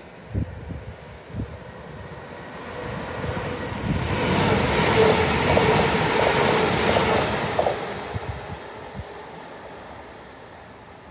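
Northern passenger train passing close along the platform: its rail noise swells from about two seconds in, peaks for a few seconds with a rhythmic clatter, then fades as it draws away.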